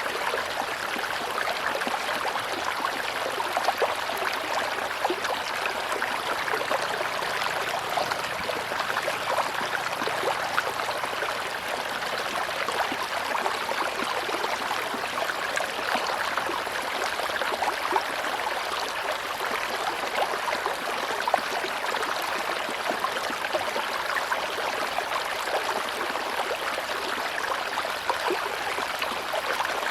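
Tropical river flowing: a steady, even rush of moving water with fine gurgling.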